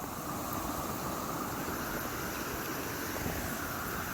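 Steady hiss of rain falling through wet forest foliage, even and unbroken.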